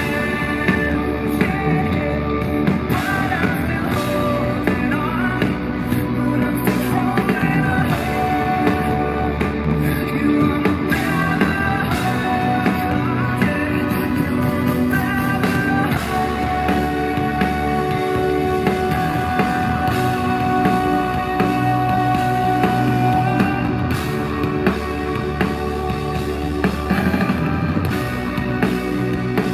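Live rock band playing loud through the venue PA: electric guitar, bass guitar, drums and keyboards, with a male lead singer.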